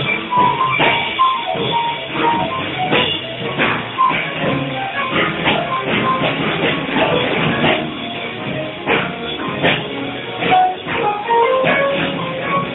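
Jazz combo playing live: a drum kit is played busily, with frequent hits, under short piano notes.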